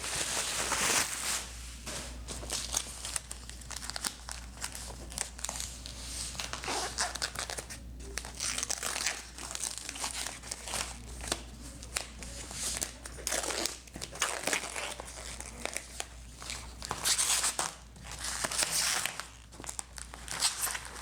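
Packaging being unwrapped by hand: wrapping crinkling and rustling in irregular bursts, with some tearing.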